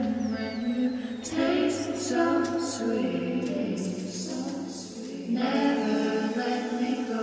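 Background music: a song with sung vocals holding long notes.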